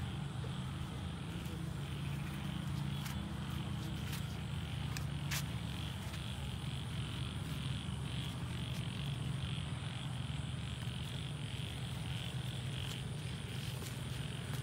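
Frogs calling at night: a regular, pulsing chorus that grows steadier from about halfway through, over a steady low hum, with a few sharp clicks.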